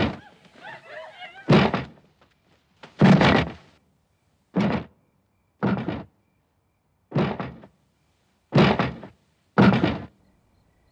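Heavy steps thudding onto the rungs of a wooden ladder as someone climbs slowly: about eight separate thunks, roughly one every second to second and a half.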